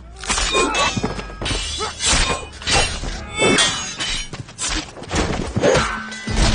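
Steel swords clashing and blows landing in a fast series of sharp metallic clangs and thuds, about two a second.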